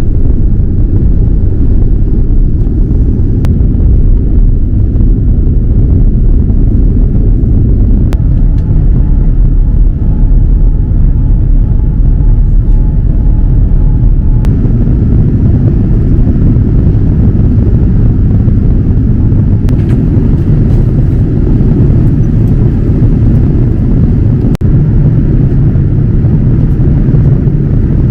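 Loud, steady low rumble of a Boeing 787-9 airliner heard from inside the cabin, the engine and airframe noise filling the low end; a faint steady tone sounds for several seconds in the middle, and the rumble grows somewhat heavier near the end.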